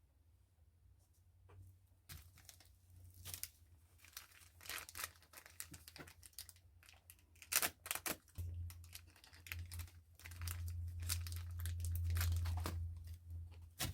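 Packaging being torn open and crinkled by hand, with irregular tearing and crackling starting about two seconds in. A low rumble joins from about the middle on.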